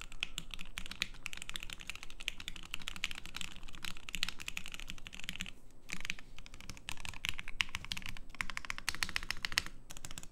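FBTKL mechanical keyboard on a hotswap PCB with a flexible plate, top-mounted without gummy O-rings, being typed on in a fast run of key clacks, with a brief pause about midway. The owner puts the poor space bar sound down to the north-facing switch orientation on the hotswap PCB.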